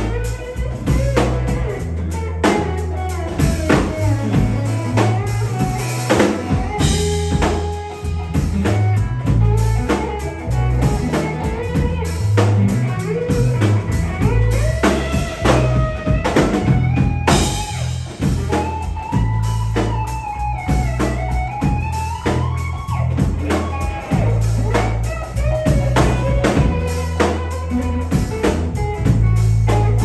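Live blues-rock trio playing an instrumental passage: lead electric guitar on a Stratocaster-style guitar with bent notes, over bass guitar and drum kit.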